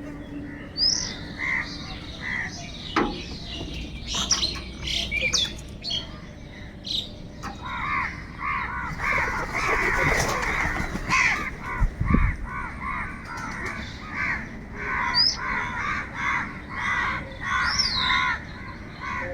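Crows cawing over and over, sparse at first, then several calling over one another in a dense chorus from about eight seconds in. Thin, high, sliding chirps of smaller birds come in between.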